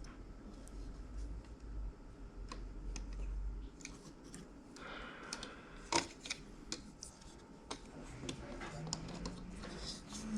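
Scattered small clicks and taps from handling the cassette deck's parts and tools, with a short scrape about five seconds in and one sharp click just after. A low hum underneath stops a little before halfway.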